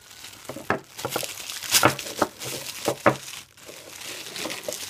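Blue plastic bubble wrap crinkling and rustling as it is pulled off a glass ink bottle, irregular, with a few sharper crackles.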